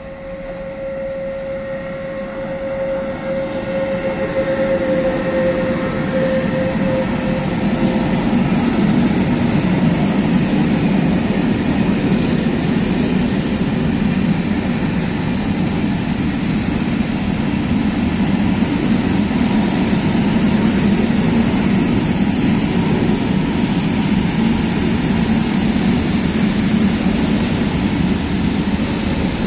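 Freight train passing: a Pesa Gama 111Ed electric locomotive goes by, then a long string of Talbot covered hopper wagons rolls past with a steady heavy rumble. The sound builds over the first several seconds and then holds loud and even, with a steady tone at first that fades out as the locomotive passes.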